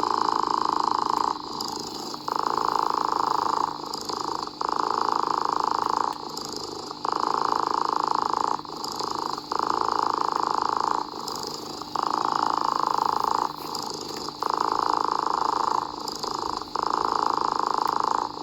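A cat purring in a regular cycle: a louder stretch of about a second and a half, then a softer dip, repeating every two seconds or so.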